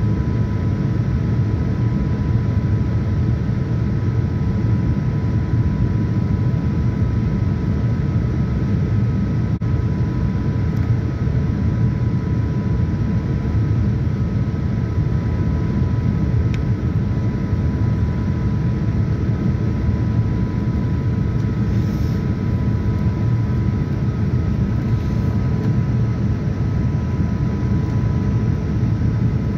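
Steady cabin noise inside a Boeing 787-9 in descent: a low, even rush of airflow and engine noise with two faint steady whines over it.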